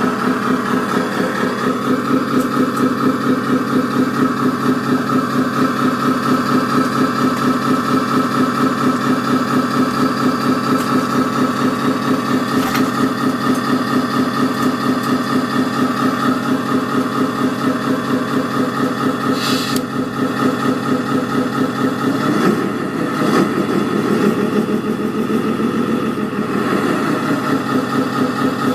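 Simulated Scania V8 diesel engine idling from an RC truck's sound module, played through a small onboard speaker with no deep bass. A short hiss comes about twenty seconds in, and in the last few seconds the engine note rises and wavers as if revving.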